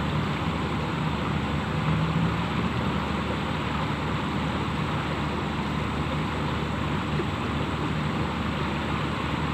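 Steady rushing noise with a faint low hum underneath.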